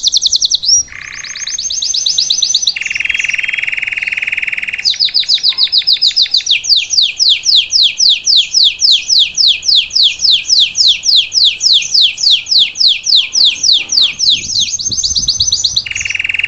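Male Belgian canary singing a long run of trills. It moves from fast high trills into a buzzy rolling phrase, then a long series of down-slurred notes at about four a second, and ends with a quick trill and another buzzy roll.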